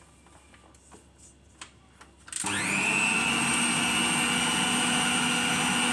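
A few faint clicks, then about two and a half seconds in a stand mixer's motor switches on, its whine rising quickly and settling into a steady run. The flat beater is working an egg into choux pastry dough.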